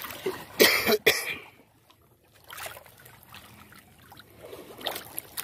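Water splashing as hands grope for fish in shallow water: two sharp splashes about a second in, then quieter trickling and dribbling.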